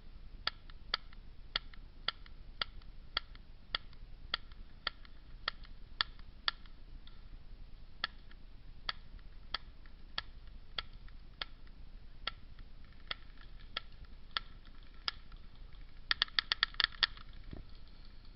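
Airsoft guns firing steady single shots, roughly one every half second, then a rapid string of about eight shots near the end.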